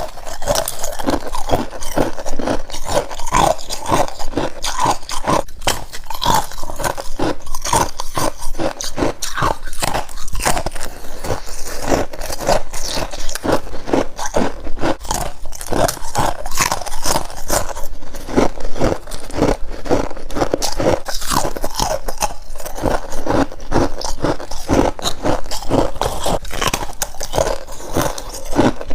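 Freezer frost being bitten and chewed: a steady run of crisp crunches, several a second, with scraping chews in between.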